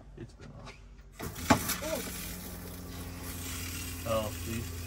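A sink tap is opened about a second in with a sharp clink, and water then runs steadily with a low hum beneath it.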